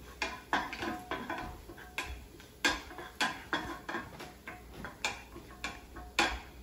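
Wooden spatula stirring in a frying pan: irregular taps and scrapes against the pan, about two a second, some with a brief metallic ring.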